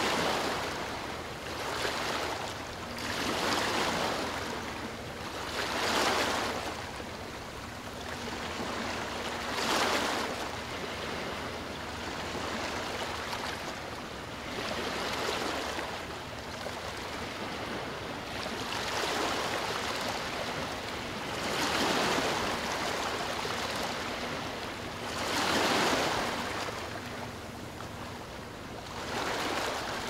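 Ocean surf: waves breaking and washing in, the rush of water swelling and fading every few seconds.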